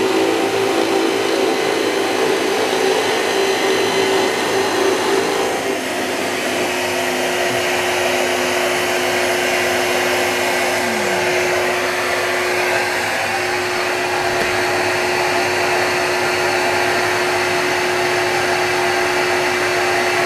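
Shop vacuum running steadily, sucking through a drill-press dust-extraction attachment, over a bench drill press running and boring into a wood block. The drilling hum changes about six seconds in, and about eleven seconds in the drill press motor winds down with a falling hum while the vacuum keeps running.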